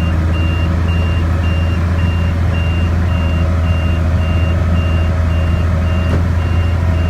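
Case 5140 tractor's six-cylinder diesel engine running steadily under load, with an electronic warning beeper sounding a steady, rapid string of high beeps over it.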